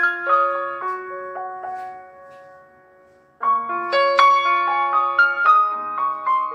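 Background piano music. The notes die away over the first few seconds, and the playing starts again suddenly, louder, a little past halfway.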